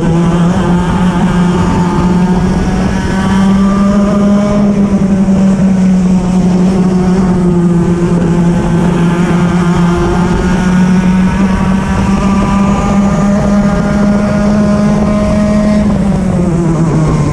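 Racing kart engine heard from the kart itself, running hard through the lap. Its pitch lifts and dips gently through the corners and drops near the end as the kart slows.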